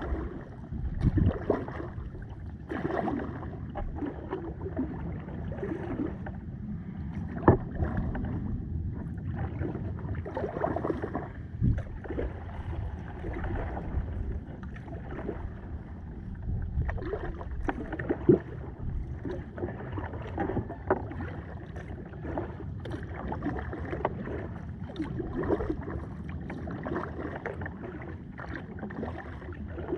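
Kayak paddle strokes splashing and dripping in the water at an uneven pace over a steady low wash of water, with two sharp knocks partway through.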